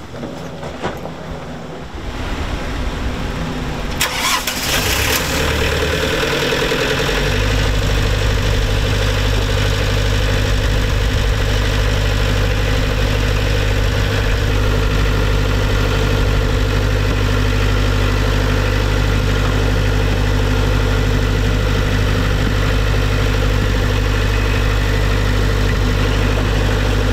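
Onan marine generator engine started: it is cranked about two seconds in, catches a couple of seconds later and settles into a steady run by about seven seconds. It is being test-run after its broken cooling-system sensor fitting was plugged to stop a water leak.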